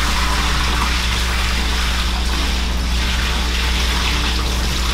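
Dirty recovery water poured from a carpet extractor's tank into a plastic utility sink: a steady gushing stream splashing into the basin. A steady low hum sits underneath.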